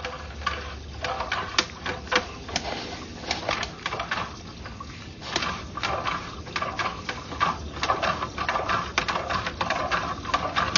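Sewer inspection camera's push cable being fed and worked back and forth in the line, making irregular clicks and knocks, several a second, over a scraping hiss.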